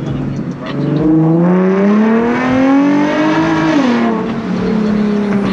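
Nissan 370Z's 3.7-litre V6 accelerating hard, its revs climbing steadily for about three seconds, then dropping sharply at an upshift about four seconds in and holding steady in the next gear.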